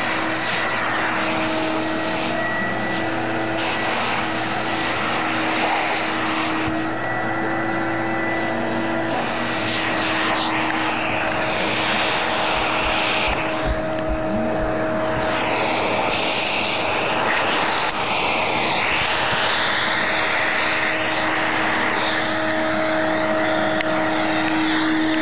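Electrolux 2100 vacuum cleaner running steadily: its motor hums with a steady whine, under a rushing air sound that changes in tone now and then.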